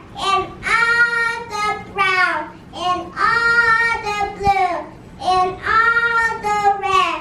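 A young child singing alone, a simple tune in several long held notes with short breaths between them.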